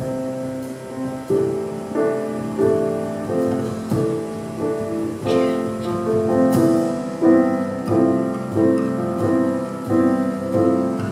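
Piano playing a melodic instrumental interlude, a run of single notes and chords struck one after another, each ringing out.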